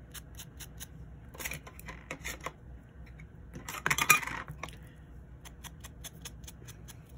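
Foam ink dauber rubbing and dabbing against the edge of a cardstock piece, with paper rustling: short scrubbing passes, the loudest about four seconds in. A fast, even ticking runs behind it.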